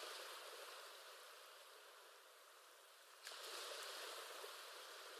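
Faint ocean waves: a soft, even wash of surf that swells at the start and rises again abruptly a little over three seconds in.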